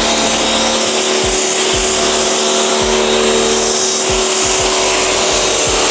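Water spraying hard onto a car's bodywork in a steady, loud hiss: the pre-rinse that washes off dirt before the contact wash.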